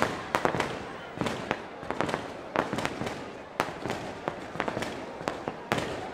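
Aerial fireworks going off: many sharp, irregular bangs and pops, several a second.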